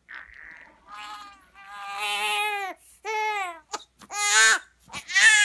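Newborn baby crying: a short breathy huff, then a series of wailing cries that bend down in pitch, each louder than the last, the loudest near the end.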